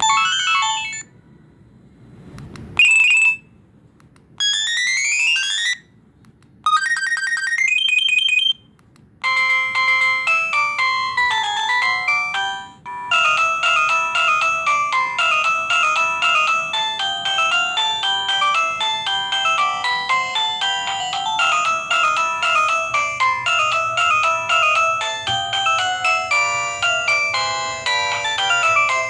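LG SD2130 phone playing its built-in ringtones one after another. First come four short electronic jingles of a second or two each, with brief gaps between; one is a run of rising sweeps. Then a longer melody starts about nine seconds in, and a continuous multi-note tune runs from about thirteen seconds on.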